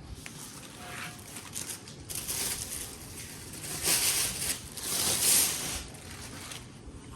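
Packing material crinkling and rustling as speaker-stand parts are handled and unwrapped, in several swells, loudest about four to five and a half seconds in.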